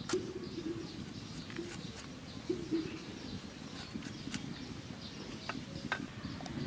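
Limes being cut on a boti blade: a scatter of short clicks and knocks as the blade goes through and the halves are set on a steel plate. Faint animal calls sound in the background.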